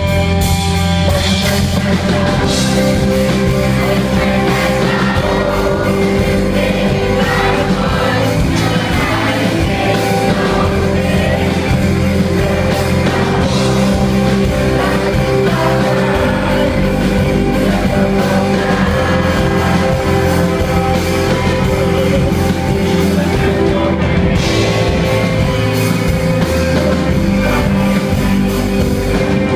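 Rock band playing live, with guitars, drums and a singer.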